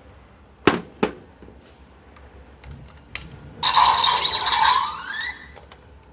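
Plastic clicks from a Kamen Rider Zero-One toy transformation belt being handled. About three and a half seconds in, its small speaker plays a loud electronic sound effect with a rising sweep near the end, lasting under two seconds.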